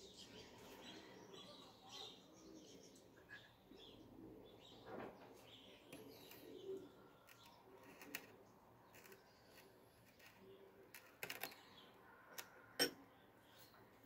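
Faint dawn birdsong: small birds chirping on and off. A few sharp clicks come near the end, the loudest about a second before it stops.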